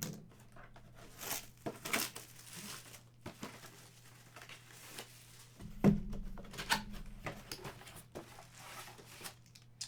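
Packaging being torn open and crinkled by hand, in irregular rustles and rips, with one sharper knock about six seconds in.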